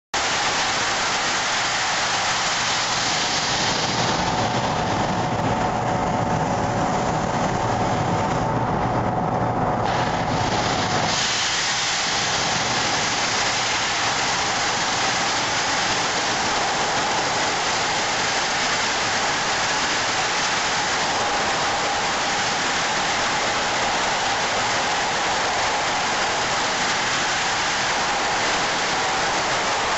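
Sandblasting nozzle spraying crushed-glass abrasive onto a wheel rim: a loud, steady hiss. From about four seconds in until about eleven seconds in the hiss dulls and a low hum with a steady tone comes through, then the full hiss returns.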